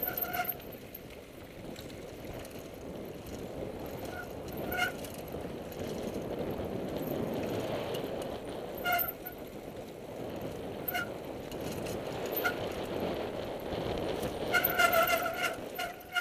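Mountain bike riding down a dirt singletrack: steady rumble of tyres on the trail and wind, broken by short honking squeals from the disc brakes each time the rider brakes, several of them bunched together near the end.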